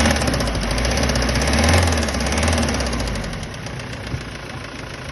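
Kia Sorento D4CB 2.5 CRDi four-cylinder common-rail diesel running warm with a knock, the fault the owner is showing. It is louder for about the first three seconds, then settles quieter.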